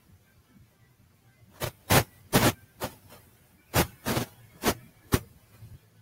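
Eight sharp knocks close to the microphone, in two runs of four about two a second with a short pause between.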